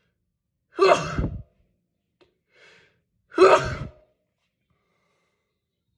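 A person sneezing twice, about two and a half seconds apart, each sneeze a loud sudden burst that trails off within a second.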